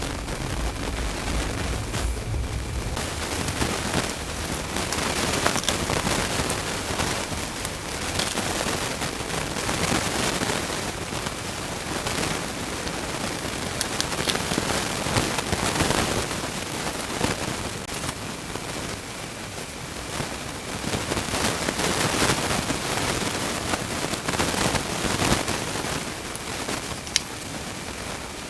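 Continuous crackling, rustling noise with many scattered sharp clicks, rising and falling in loudness.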